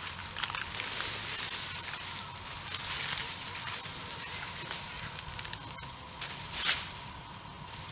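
Rustling and crackling of grass and stiff pineapple leaves as pineapple plants are pulled up by gloved hands from a weedy row. About six and a half seconds in there is a louder rustle as a bundle of plants is tossed onto a cart.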